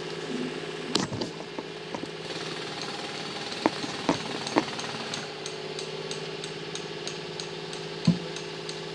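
An engine running steadily at idle, with a few sharp knocks. In the second half a light regular ticking comes in, about three times a second.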